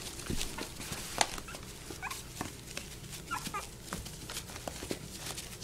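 Young puppies scrabbling in a plastic tub, many quick clicks and scratches of small claws on the plastic, with a few short high squeaks and whimpers about two seconds in, around the middle and near the end.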